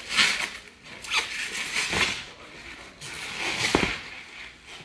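Packing material rustling and crinkling as it is handled and pulled out of a box, in irregular bursts, with a couple of soft knocks about two seconds in and again near the end.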